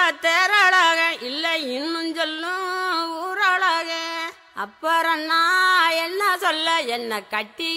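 A woman singing a song in Carnatic style, holding long notes and bending them with ornamented slides between pitches, in phrases with short breaths between them.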